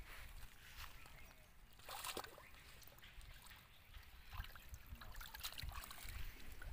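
Faint splashing and trickling of shallow pond water as hands grope through it for fish, with a louder splash about two seconds in.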